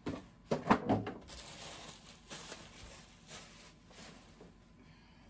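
Cardboard and plastic packaging being handled while unpacking: a few sharp knocks and scrapes about half a second to a second in, then rustling that fades away.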